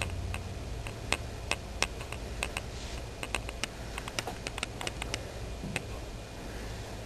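Irregular light clicks and ticks, a few a second, over a steady low hum.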